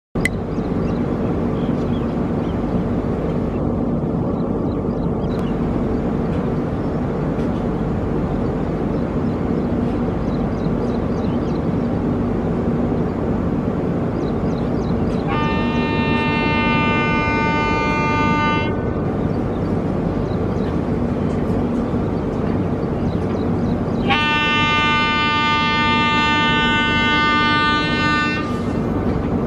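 Indian Railways electric locomotive approaching with a steady running rumble, sounding its horn in two long blasts, the first about halfway through lasting roughly three seconds and the second near the end lasting about four.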